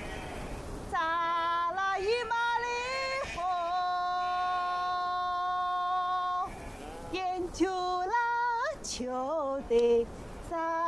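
A woman singing a slow melody solo, holding long notes with quick ornamented turns between them. There are short breaks near the start and about six and a half seconds in.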